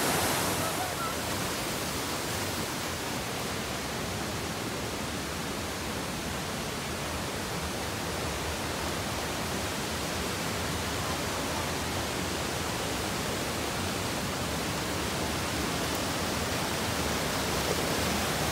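Steady rush of whitewater from a mountain stream cascading over boulders, easing slightly about a second in.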